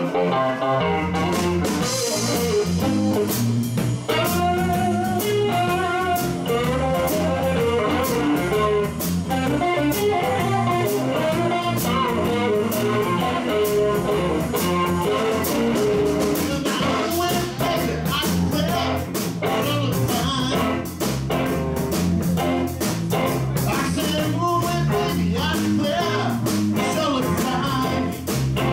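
Live electric blues band playing: electric guitars over bass and drums with a steady beat.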